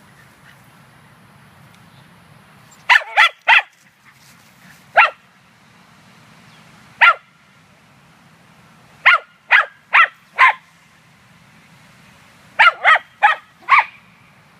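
Scottish terrier barking at a squirrel: short, sharp barks, some single and others in quick runs of three or four, about a dozen in all.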